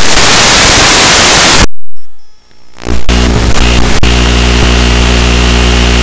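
Loud hiss of static from an analog FPV video receiver that has lost the quadcopter's signal. It cuts out about two seconds in, and after a short gap a steady buzzing hum comes through the restored video link.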